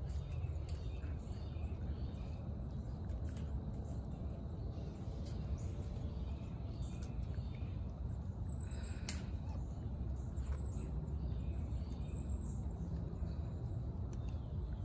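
Outdoor ambience: a steady low rumble, with faint short chirps and a few light clicks scattered through it.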